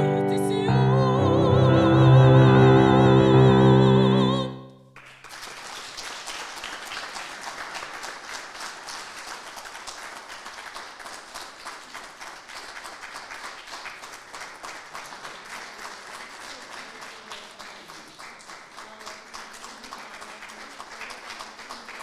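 A woman's operatic voice holds a final long note with wide vibrato over piano chords, cutting off about four and a half seconds in. Applause then follows and runs on steadily.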